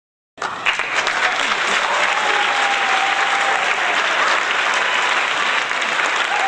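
Applause sound effect: a crowd clapping, cutting in abruptly a moment in and going on steadily, with a few faint held calls over the clapping.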